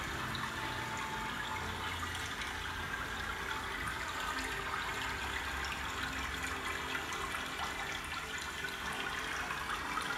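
Steady rush of running water, with a few faint held tones underneath.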